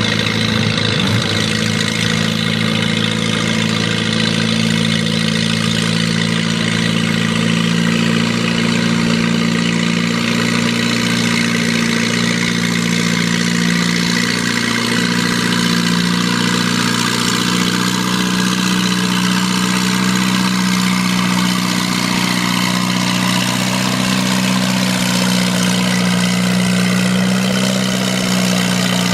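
Minneapolis-Moline farm tractor engine running steadily at a tractor pull, its pitch rising slightly about halfway through.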